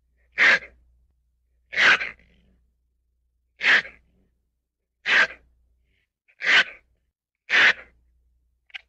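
A ferret making a series of short, sharp, noisy sounds, six in a row about a second and a half apart, with a fainter one near the end.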